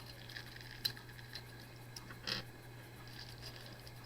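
Beyblade top's plastic and metal parts being handled and refitted into another mode, with a few faint light clicks and taps, the clearest about a second in and again a little past two seconds, over a steady low hum.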